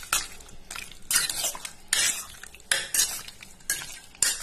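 A metal spoon scraping and clinking around a stainless steel bowl as it mixes chicken pieces through a wet egg-and-cornflour marinade, in short uneven strokes about twice a second.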